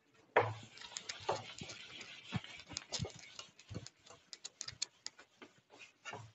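Hand-held whiteboard eraser rubbing across a whiteboard, wiping off marker writing: a scratchy hiss of wiping strokes strongest in the first half, with many short sharp ticks throughout.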